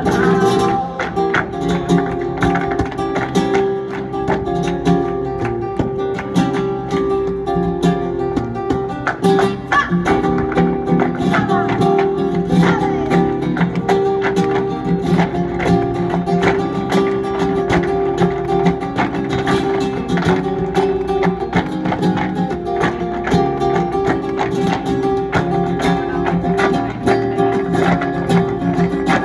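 Live flamenco music: acoustic guitar playing under a steady stream of sharp percussive taps and claps.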